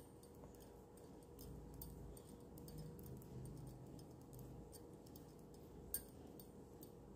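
Near silence with faint ticks of knitting needles working stitches, and one sharper click about six seconds in.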